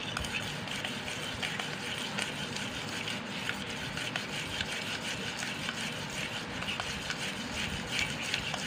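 A spoon stirring and beating a thick mix of instant coffee, sugar and chocolate powder with a little water: a steady scraping with frequent small clicks.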